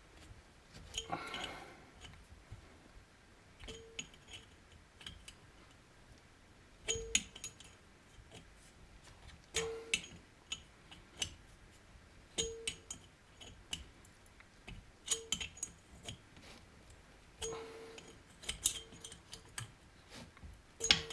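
Metal clicks and clinks from a hand tool working a pair of jammed nuts to drive a muffler stud into a two-stroke chainsaw cylinder, in short strokes every two to three seconds, each with a brief ringing clink. The stud is binding in its thread.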